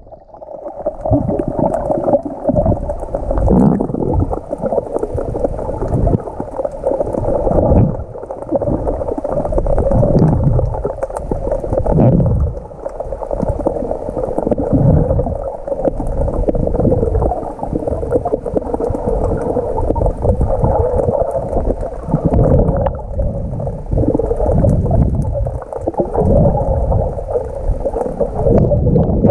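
Water sloshing and gurgling, muffled as heard by a camera carried by a swimmer, surging every second or two with the swimming strokes. A faint steady hum runs underneath.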